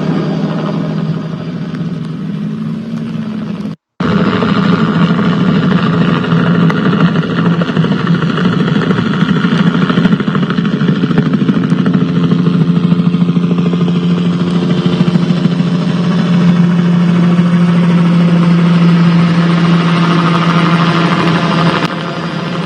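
An engine running steadily at a constant pitch, cut by a brief dropout about four seconds in.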